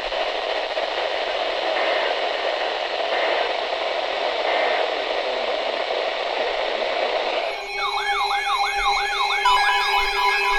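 Weather radio receiver hiss and static with no voice for about seven seconds. Then it switches abruptly to an emergency alert sound: steady tones layered with a quickly repeating rising-and-falling warble, the start of the next severe thunderstorm warning.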